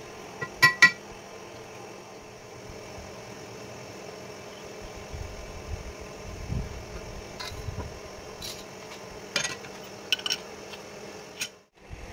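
Metal-on-metal clinks from a steel plate, steel rule and hand tools being handled at a stopped lathe's four-jaw chuck: two loud ringing clinks about a second in, then several lighter taps and clicks, over a steady low hum.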